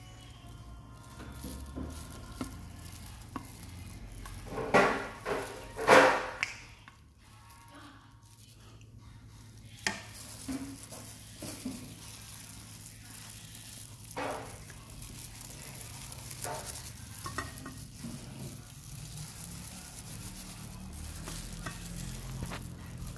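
Kitchen handling sounds of a creamy sauce being scraped from a pot and spread over bread in a glass baking dish: scraping and stirring noises, with two louder scrapes about five and six seconds in and scattered light knocks after.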